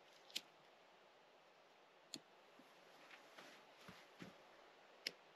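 Near silence broken by about five faint, sharp clicks and knocks roughly a second apart: dry sticks being handled and set onto a small campfire lay.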